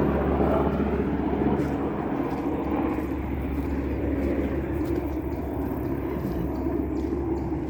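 A steady low rumble that slowly fades.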